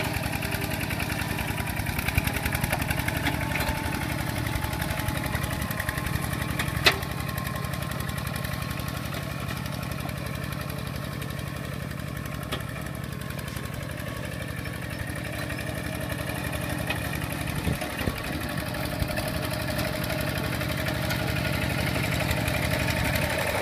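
Single-cylinder diesel engine of a Kubota two-wheel walking tractor running steadily under load with a fast, even beat as it pulls a disc plough through mud, with one brief click about seven seconds in.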